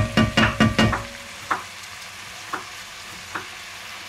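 Wooden spatula stirring and knocking in an enamel pot of minced meat frying in Griebenschmalz, over a steady faint sizzle. A quick run of knocks comes in the first second, then three single taps.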